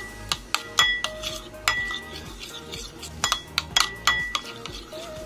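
Metal spoon stirring mayonnaise and milk in a ceramic bowl, clinking against the bowl many times in an uneven rhythm, several clinks ringing briefly.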